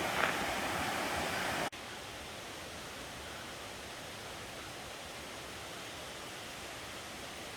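Steady rush of a creek's flowing water. About two seconds in it drops suddenly to a quieter level and carries on evenly.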